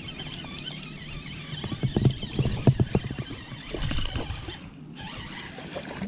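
Baitcasting reel cranking, with short clicks and knocks of rod and reel handling, as a largemouth bass is reeled in on a topwater bait. Water splashes briefly about four seconds in as the fish thrashes at the surface near the boat.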